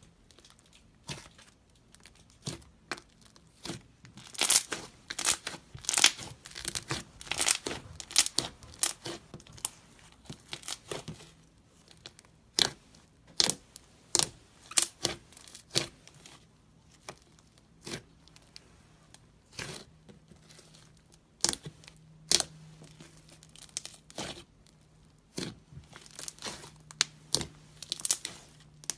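Slime being squished and worked, giving irregular sharp crackling pops and clicks, thickest in clusters early on and again near the end.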